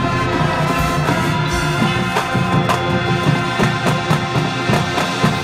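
Marching band playing loud: brass and winds holding chords over repeated percussion strikes, the music cutting off sharply near the end.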